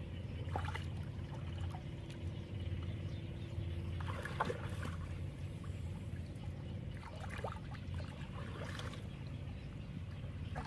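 Water trickling and splashing lightly in a shallow canal, with a few short scattered splashes over a steady low rumble.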